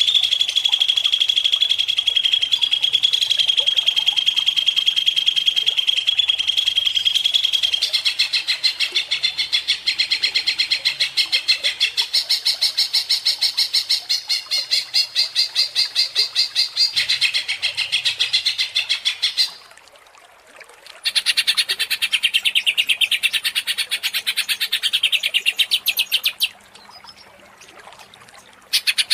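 Green leafbird (cucak ijo) in excited, agitated full song: a loud, very fast rattling trill, held high and steady at first and then quicker and more chattering. It breaks off for about a second after some 19 seconds, resumes, pauses again for about two seconds, and starts up once more near the end.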